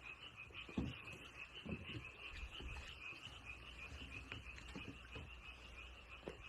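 Faint, steady pulsing trill of frogs calling, with a few soft low knocks.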